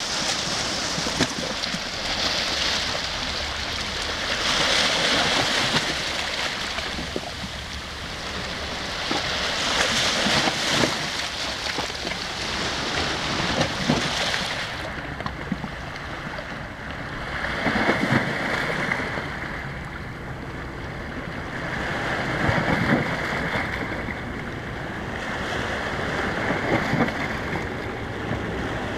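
Small sea waves washing in over rocks and pebbles at the water's edge, the wash swelling and easing every four to six seconds, with light clicks scattered through it.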